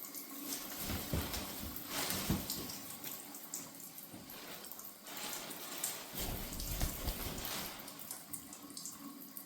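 Shower water running steadily, spraying over a macaw during its first bath. The splashing grows heavier twice, about a second in and again past the middle.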